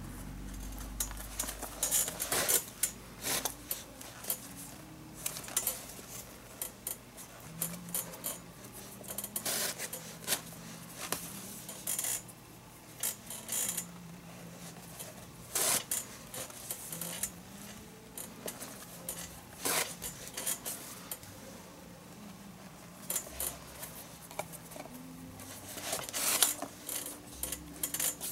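Leather lace being threaded and pulled tight through the palm of a leather baseball glove. Irregular short clicks, rubs and zipping scrapes of lace against leather and the lacing needle, several a few seconds apart.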